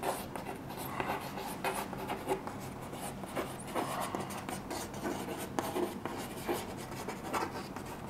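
Chalk writing on a chalkboard: a run of short, irregular scratching strokes and taps as words are written out.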